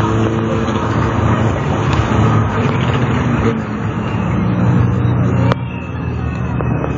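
Steady road traffic with a low engine hum. A single sharp click about five and a half seconds in, after which the sound drops a little.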